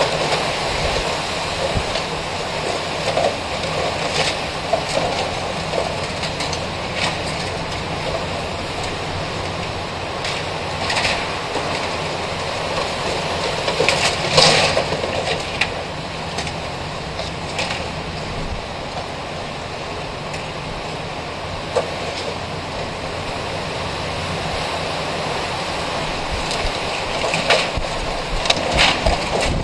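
Strong storm wind blowing steadily, with intermittent rattling and banging from loosened corrugated metal storm shutters and a metal awning being worked loose. The loudest clatter comes about fourteen seconds in, and another cluster comes near the end.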